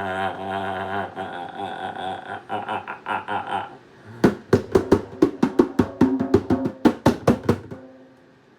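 A man's voice holding a wavering hummed drone for about three and a half seconds, then a fast run of mouth-percussion beatbox strokes, about five a second, lasting about three seconds.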